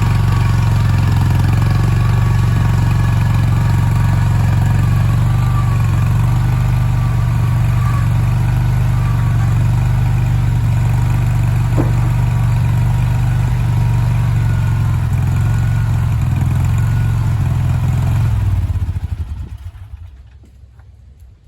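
Skid steer engine running steadily, then shut off about nineteen seconds in and winding down over a second or so. There is one sharp clank about halfway through.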